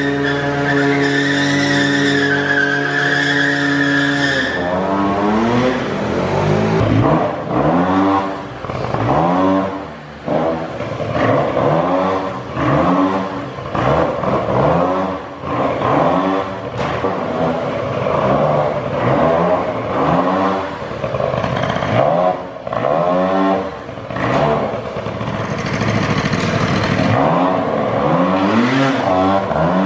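Small two-stroke moped engines held flat out on a steady high note for about four seconds. Then a two-stroke scooter engine is revved hard over and over, its pitch climbing and dropping back about once a second.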